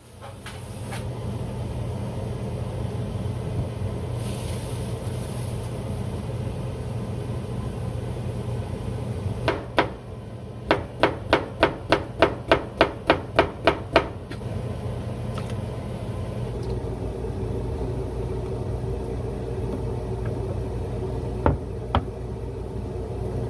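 Knife chopping on a cutting board: a run of about a dozen sharp, even strokes, roughly three a second, around the middle, over a steady low hum.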